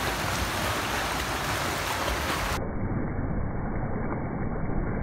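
Steady splashing of water churned up by a swimmer's kicking feet while holding a kickboard in a pool.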